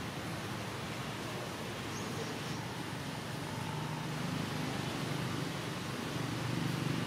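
Steady low background rumble, with a faint brief high note about two seconds in.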